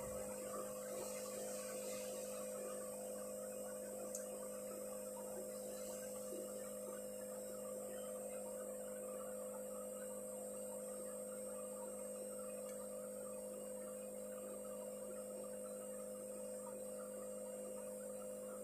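Steady electrical hum, low and unchanging, over faint background noise.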